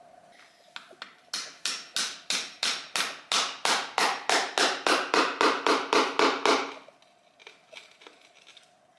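Hammer tapping an old, blunt chisel in quick, even strokes, about three a second, chipping under a grouted-out tile to lift it out. The strikes grow louder, then stop about seven seconds in.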